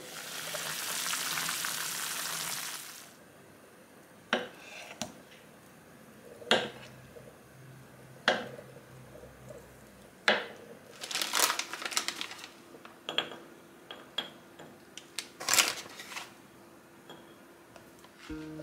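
A steady hiss from a pot on an induction hob for the first three seconds as its lid comes off. This is followed by sharp, irregularly spaced knocks of a kitchen knife slicing peeled kiwi onto a wooden cutting board, with a quick run of cuts near the middle.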